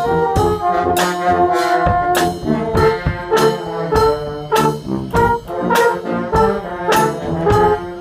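Brass band playing a lively tune, with French horns, trombone and euphoniums together in chords. A bass drum and cymbal strike the beat about twice a second.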